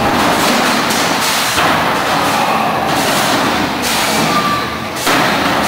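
Featherweight combat robots clashing in an arena: a steady loud din broken by several sharp bangs of robots hitting each other or their weapons striking, the loudest bang about five seconds in.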